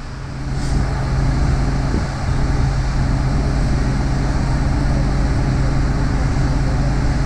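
Steady low engine drone with wind on the microphone, growing louder about a second in and then holding.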